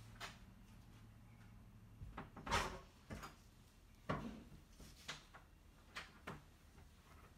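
A series of short knocks and thuds, roughly one a second, the loudest about two and a half seconds in.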